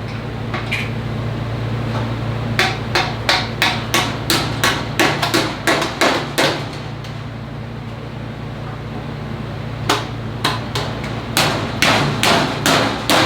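Hammer tapping tube caps onto the tube ends of a CNC plasma table's frame, in quick runs of sharp taps about three a second, with a pause of a few seconds between the two runs.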